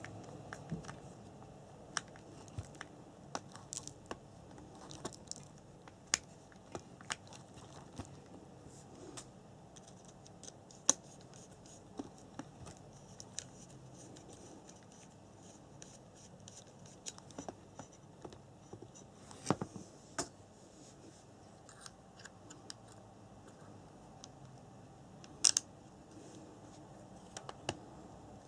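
Scattered small clicks, taps and scratches of hands handling a radio-controlled buggy's plastic parts and motor wiring, over a low steady hiss. A few sharper clicks stand out, about eleven seconds in, around twenty seconds, and a double click near the end.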